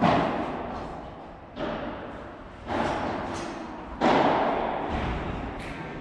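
Padel rally: the ball knocked back and forth with rackets, four sharp hits about a second apart, each fading out in a long echo.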